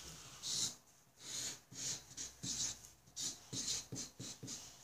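Sharpie permanent marker drawing lines on a sheet of paper: a string of short scratchy strokes with brief pauses between them.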